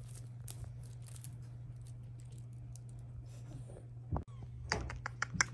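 Scattered light clicks and taps, with a quick run of sharper, louder clicks near the end, over a steady low hum.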